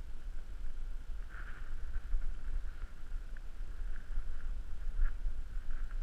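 Low rumble of wind on the microphone, with a faint high drone that swells and fades. A couple of soft clicks come as a miniature horse nibbles feed off the asphalt beside the microphone.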